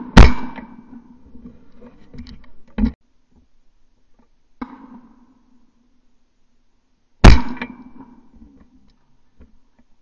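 Two loud shotgun shots about seven seconds apart, each cracking sharply and dying away with a short ringing tail. A smaller sharp knock comes near three seconds in and a fainter one near five seconds.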